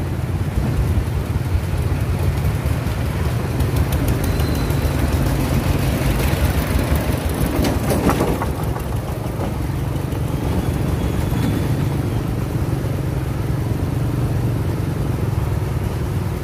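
Steady low engine running of a công nông tractor-tricycle's single-cylinder diesel as it tows an excavator down the street, mixed with motorbike engines close by. About halfway through there is a brief louder rush of noise.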